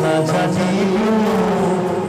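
Live band playing a Hindi film song while a man sings one long held note that wavers gently in pitch.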